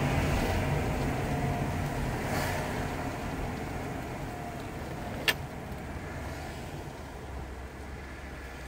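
Ford Granada's 3.0 V6 and tyre noise heard from inside the cabin while driving, growing quieter as the car slows down. A single sharp click about five seconds in.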